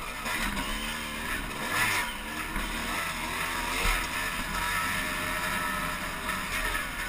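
Dirt bike engine running while riding a dirt trail, heard from a camera mounted on the bike; its pitch rises and falls with the throttle.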